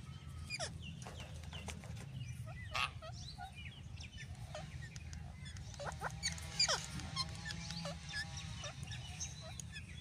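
Parakeets, Alexandrine and ring-necked, calling: scattered short sharp squawks, a loud one about three seconds in and a cluster around six to seven seconds, then a few longer pitched calls, over a steady low background hum.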